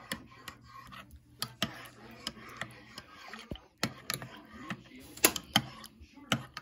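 Metal spoon clinking and tapping irregularly against the sides of a mug while stirring a hot chocolate bomb into milk, with a louder clink about five seconds in.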